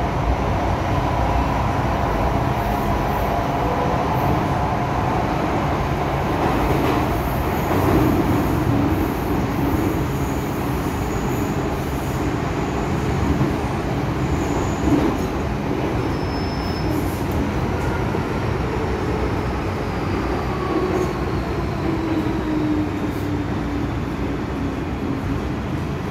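MTR M-Train electric metro car running at speed through a tunnel, heard from inside: a steady rumble of wheels on rail, with faint high squealing tones that come and go.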